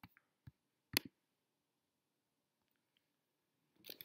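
Three faint, sharp clicks within the first second, then quiet room tone, then a short soft noise near the end.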